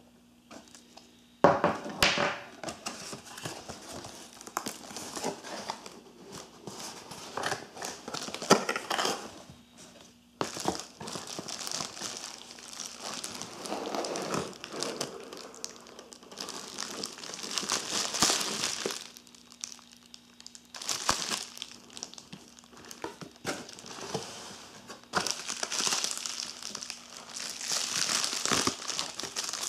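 Crinkling and rustling of a plastic bubble-wrap bag being handled and pulled open, in irregular bursts with short pauses. It starts about a second and a half in with a sharp knock, and another sharp knock comes about eight seconds in.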